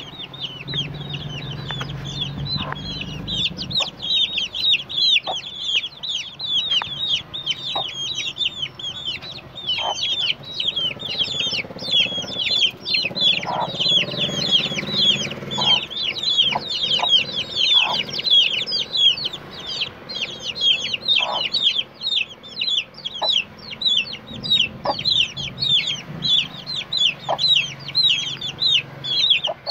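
A brood of domestic chicks peeping nonstop, a dense chorus of short, high, falling peeps, with a hen's low clucking underneath at times.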